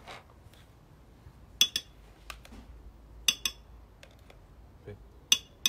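A spoon clinking against a tub and a blender jar as three spoonfuls of chili purée are scooped and tapped off: three sharp clicks or close pairs of clicks, about a second and a half apart.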